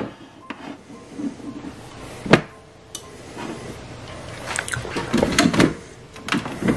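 Several sharp clicks and knocks, with light rustling between them, as a single-serve pod coffee maker is loaded by hand and its brew head is opened and shut.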